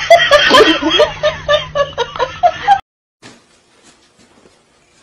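A person laughing hard in quick, evenly spaced bursts, which cut off suddenly about three seconds in, leaving only faint clicks.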